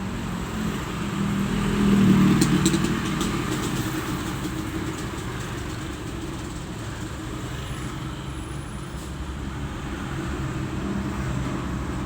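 Road traffic in a jam: vehicle engines running steadily, with one passing close and loudest about two seconds in.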